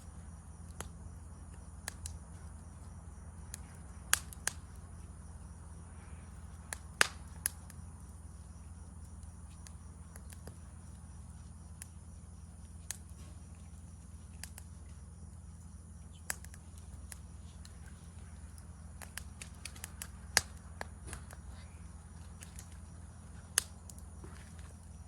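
Wood campfire crackling, with scattered sharp pops, over a steady high insect chirring and a low hum.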